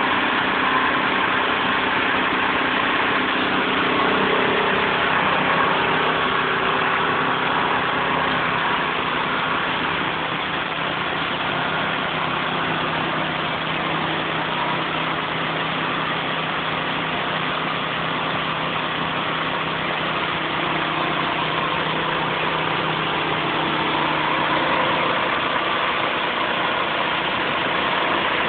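Hydraulic bandsaw sawmill's engine running steadily at a constant speed, a continuous mechanical hum.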